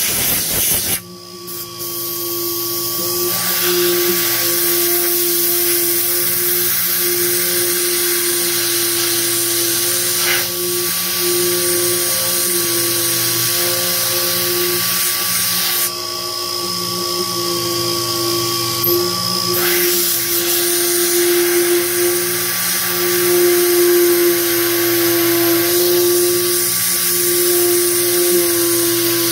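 Sherline CNC milling machine spindle running steadily at about 10,000 rpm while a carbide drill cuts small holes in 7075 aluminium, over the hiss of a coolant mist sprayer. The hiss drops out briefly about a second in.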